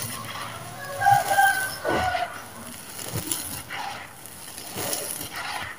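Hands scooping and crumbling dry, dusty red sand-cement mixed with small stones: gritty crunching and pouring in irregular strokes. A short high-pitched call sounds in the background about a second in.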